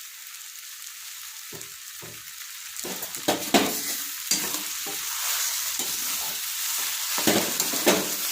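Grated amla sizzling in a hot pan as jaggery is stirred into it with a spatula. The frying hiss is steady. Scraping strokes and a few sharp knocks against the pan begin about a second and a half in and grow louder from about three seconds.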